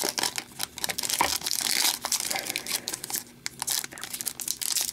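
Foil wrapper of a hockey card pack crinkling and tearing as it is opened by hand, in an uneven run of rustles and crackles.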